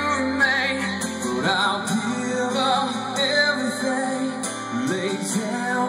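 Live contemporary Christian rock band playing through the stage PA: strummed acoustic guitar, electric guitar, bass guitar and drums, with a lead line bending in pitch over the top. The deep bass note drops out about two seconds in.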